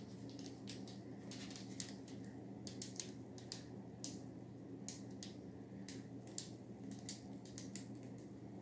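Faint, irregular light ticks and crackles, several a second, as a wet poured acrylic canvas is tilted by hand over plastic wrap. A low steady hum runs underneath.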